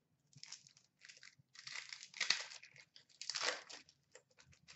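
Foil trading-card pack wrapper crinkling and tearing as it is opened, in four short bursts with a few light clicks near the end.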